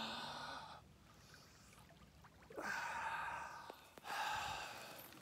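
A man breathing heavily while immersed in ice-cold lake water: three deep, breathy breaths, each about a second long, a second or two apart, the kind of forced breathing brought on by a cold plunge.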